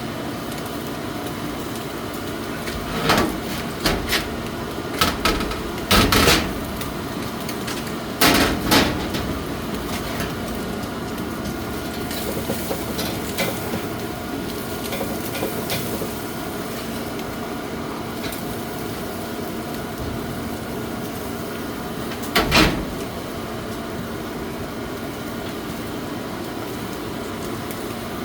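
Steady mechanical hum under a run of sharp knocks and clatters, several between about three and nine seconds in and one more past twenty-two seconds.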